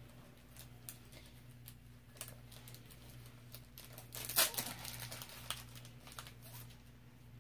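Faint scattered clicks and crinkles of a plastic-covered diamond painting canvas being handled, with one louder crinkle about four and a half seconds in, over a low steady hum.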